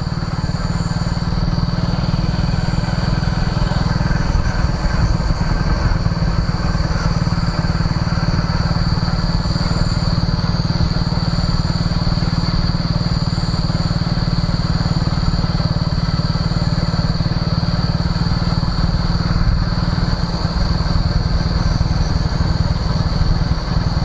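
Motorcycle running steadily while being ridden, a continuous engine and road rumble with a thin, steady high-pitched whine above it.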